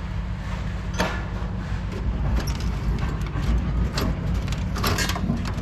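A few sharp metallic clinks and rattles from hand-stripping scrap, about one, four and five seconds in, over a steady low rumble.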